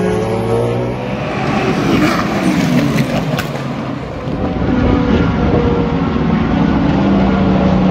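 Sports-prototype and GT race cars passing at speed, their engine notes sweeping up and down in pitch as they go by.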